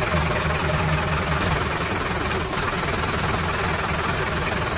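Steady engine-like drone, as of a vehicle idling, under a constant hiss.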